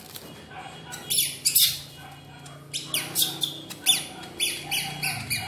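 Baby macaque giving a run of short, high-pitched falling squeaks, several a second, with a brief crinkly rustle about a second in.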